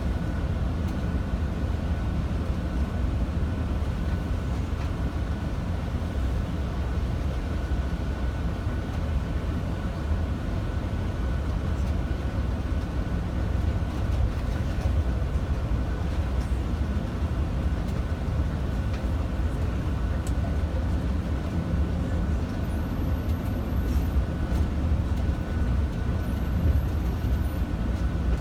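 Tour coach running on the road, its engine and road noise heard from inside the passenger cabin as a steady low rumble, with a faint steady whine above it.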